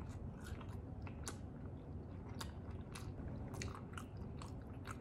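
A person chewing french fries close to the microphone, with irregular mouth clicks through the chewing.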